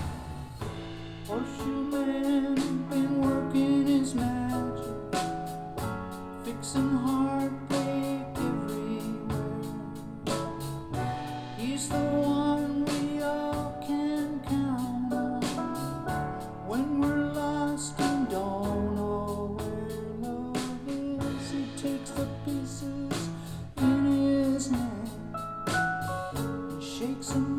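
Recorded music with singing, played back through Harbeth SHL5+ loudspeakers driven by a FEZZ Audio Mira Ceti 300B valve amplifier and picked up in the room by a recorder's built-in XY microphones.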